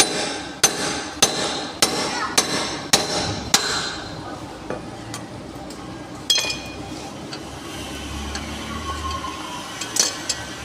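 A hammer striking metal on a car's suspension during wheel bearing and ball joint work. There are about seven evenly spaced blows, a little over one a second at first, each with a short metallic ring. After a pause come a couple of isolated strikes further on.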